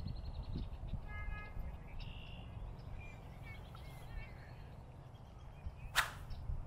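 Outdoor park ambience: a low steady rumble with several short, high bird calls in the first few seconds, and one sharp click about six seconds in.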